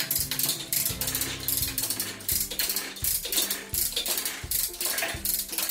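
Hand-cranked come-along ratchet clicking rapidly and evenly as it is worked, pulling the John Deere 5400's rear half away from the front. Background music plays under it.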